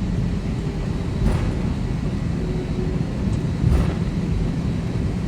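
Steady low rumble of a jet airliner's cabin, engine and airflow noise filling the cabin evenly.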